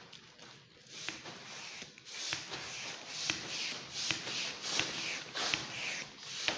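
Mylar foil balloon crinkling and rustling as it is squeezed and handled, with sharp crinkles coming roughly once a second.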